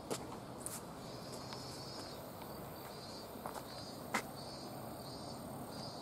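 Insects chirring in high, pulsing stretches over a steady outdoor hiss, with a sharp click just after the start and a louder one about four seconds in.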